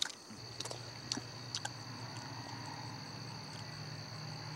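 Crickets chirping in a steady high trill over a low, even hum, with a few faint knocks in the first two seconds.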